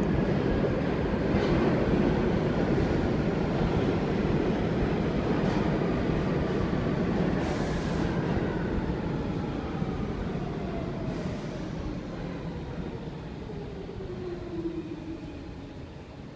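New York City subway train running through a station and pulling away. A loud rumble carries a whine that falls steadily in pitch, with a few clicks from the wheels, and the sound fades as the train leaves.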